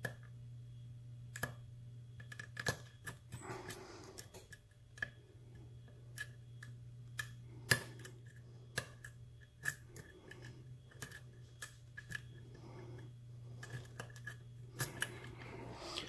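Hook pick and tension wrench working the pins of a 38 mm Ace brass padlock during single-pin picking: faint, irregular metallic clicks and ticks as the pick lifts and sets pins in the keyway, over a steady low hum.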